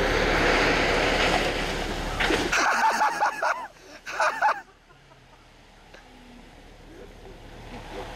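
Hummer 4x4 charging through a big slushy puddle on a snowy trail: engine running with a loud rush of splashing water, which stops after about two and a half seconds. Short bursts of voices exclaiming follow, then only a quiet low rumble.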